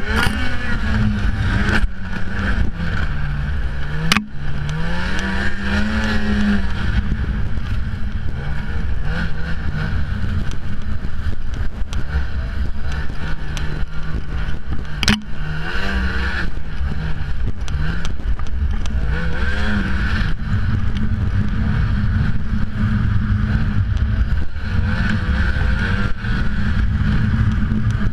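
Ski-Doo snowmobile engine running under way, its pitch rising and falling again and again as the throttle is worked. Two sharp clicks, about 4 seconds in and again about 15 seconds in.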